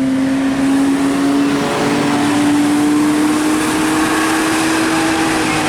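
A road vehicle passing close by, its engine making a strong steady pitched note over road noise that rises slightly partway through and starts to fall as the vehicle goes past.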